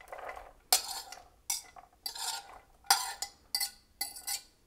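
A spoon scraping and clinking against cookware in about six short strokes as diced raw carrot is added to a tomato sauce.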